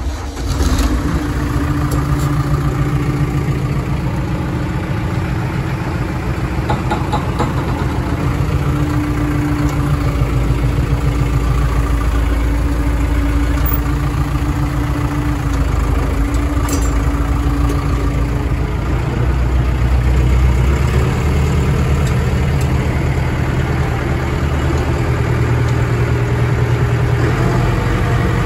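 Engine running steadily at idle, a continuous low machine drone with a held mid tone that fades out about two-thirds of the way through.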